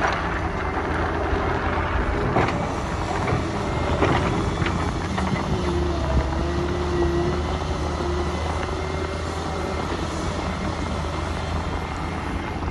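Solar 130 hydraulic excavator running while it digs: a steady engine drone, with a hydraulic whine that rises and holds for a few seconds near the middle. A few sharp knocks come early on, from the bucket and linkage at work.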